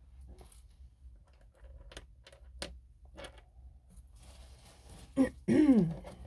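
Light scattered clicks and taps of small objects being handled on a table. About five seconds in comes a sharp knock, then a loud half-second scraping sound whose pitch falls steeply.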